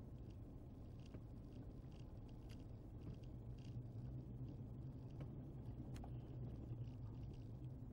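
Faint, steady low hum of a car's engine and tyres, heard from inside the cabin while driving slowly, with a few light ticks.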